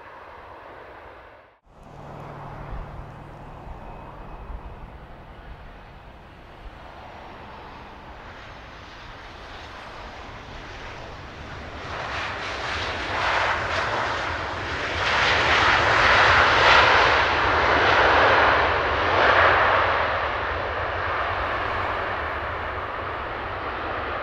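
A fixed-wing aircraft passing by, its engine noise rising from about halfway through to a loud peak some two-thirds of the way in, then easing off. A low steady rumble runs underneath.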